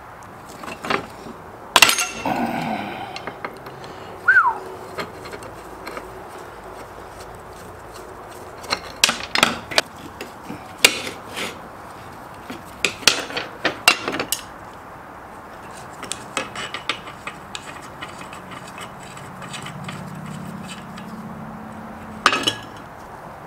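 Small metal parts and hand tools clicking and clinking on and off while a chainsaw component is worked apart by hand, with clusters of clicks around 9, 13 and 22 seconds in and a short falling squeak about four seconds in.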